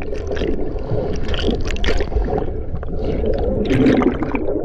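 Muffled underwater gurgling and bubbling heard with the microphone submerged in a river, with many small crackles. It swells near the end as a cloud of bubbles rushes past.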